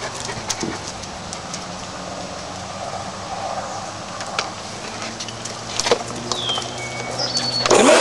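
Low steady background with a few clicks and brief high squeaks. Near the end a hair dryer switches on: a sudden loud rush of air whose motor whine rises as it spins up.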